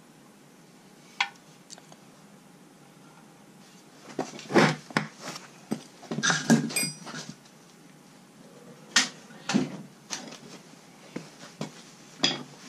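Metal hand tools and loose bolt hardware clinking and clattering against the steel of a wood chipper as a blade's Allen-head bolt, nut and washers come off. A sharp click about a second in, a cluster of clatters around the middle with a brief metallic ring, then a few single knocks near the end.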